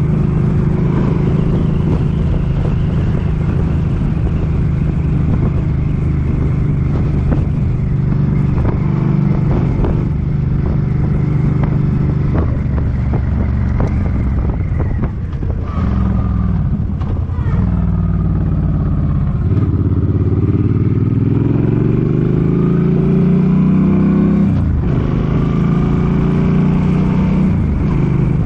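Suzuki Boulevard M50's V-twin engine running at steady cruising speed. About halfway through the revs fall away, then climb for several seconds, dropping sharply at a gear change before settling back to a steady pull.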